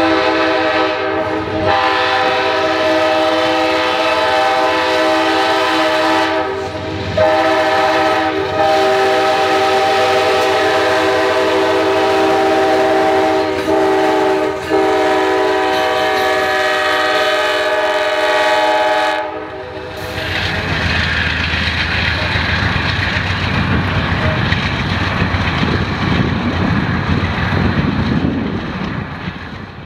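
Amtrak passenger train's locomotive horn sounding a long horn show: several long blasts with short breaks between them. The horn cuts off about two-thirds of the way through, leaving the rumble and clatter of the train rolling past on the rails.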